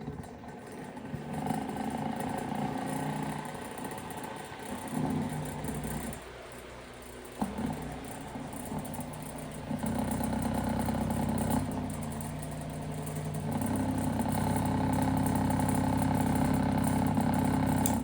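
Small vintage Corando 8-inch electric desk fan running, its motor hum mixed with a rattle. The sound gets louder in steps, with a dip and a single click about seven seconds in.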